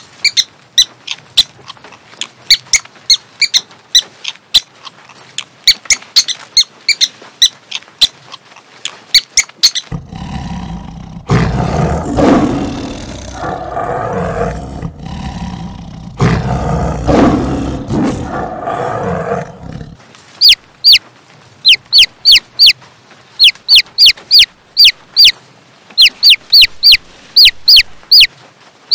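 Quick runs of short, high squeaks for about the first ten seconds. Then a tiger growls and roars in two long bouts, and from about two-thirds of the way in, baby chicks peep in runs of short, loud, falling chirps.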